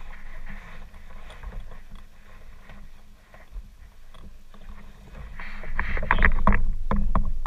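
Kayak on the water with water splashing and sloshing against the hull and paddle over a low wind rumble; the splashing grows louder and more frequent about two-thirds of the way through.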